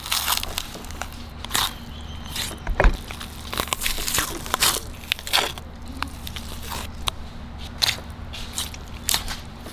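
Raw chicken breast being deboned: the meat is torn away from the bone by hand and cut with a knife, giving irregular sharp clicks and crackles a few times a second.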